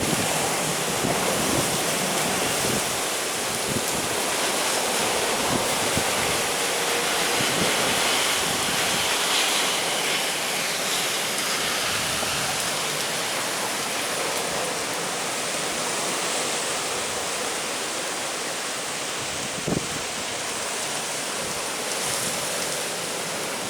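Heavy ocean surf washing in steadily, with a few low wind thumps on the microphone: rough sea stirred up ahead of an approaching typhoon.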